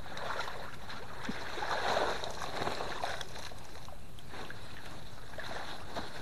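Muddy ditch water sloshing and splashing around a person wading waist-deep, loudest about two seconds in, over a faint steady high-pitched tone.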